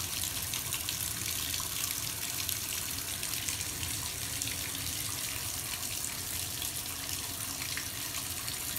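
Bathtub tap running steadily, a stream of water splashing onto the bottom of a nearly empty tub as it fills.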